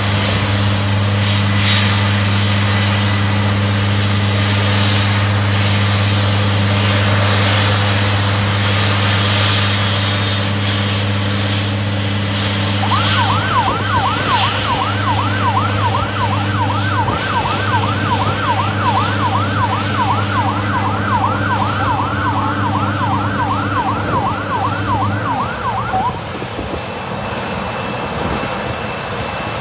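Airport fire truck's siren yelping in fast rising sweeps, about two and a half a second, from about 13 seconds in until about 26 seconds in. Underneath is a steady low engine drone that cuts off about 25 seconds in, with the noise of the airliner's jet engines beneath it all.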